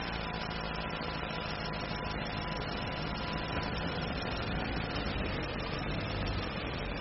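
A steady engine hum.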